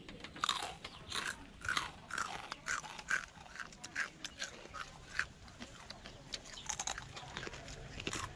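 Close-up crunching as crispy deep-fried macaroni is chewed, about two to three crisp crunches a second, thinning out over the last few seconds.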